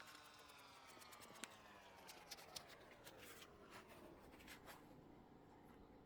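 Faint scratching and light clicking of a foam banana squishy being handled, over a faint tone that slowly falls in pitch.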